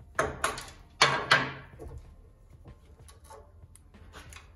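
Four sharp clanks with short ringing tails in the first second and a half, then lighter clicks: hands working a wiring harness and its clip against a steel truck frame rail.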